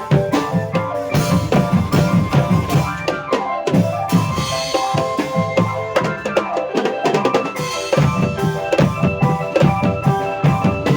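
Drum-led music: a quick, steady beat of bass drum and snare strokes under a sustained melody.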